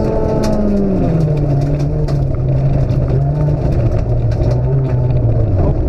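Toyota Corolla AE82 FXGT's 4A-GE twin-cam four-cylinder engine heard from inside the rally car on gravel. The revs drop about a second in, then hold lower and ease slowly down, over a steady road rumble with stones ticking against the car.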